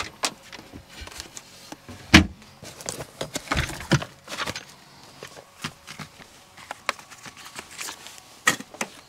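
Scattered knocks, clicks and rustles of things being handled inside a camper van, such as a cabinet door opening and a bag being hung on a curtain rail. The loudest knock comes about two seconds in.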